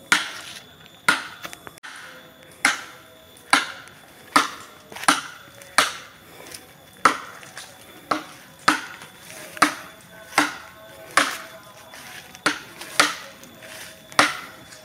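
Repeated chopping with a blade into bamboo, a little more than one stroke a second, each a sharp crack that dies away quickly: bamboo being cut and split to make satay skewers.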